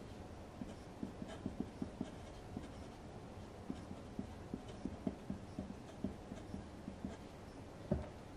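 Fountain pen nib writing Japanese characters on a single sheet of Kokuyo loose-leaf paper: faint, irregular scratching with small ticks as each stroke starts and lifts, called quite scratchy (カリカリ), which the writer puts down to the lone sheet lying directly on the table. A single soft knock near the end.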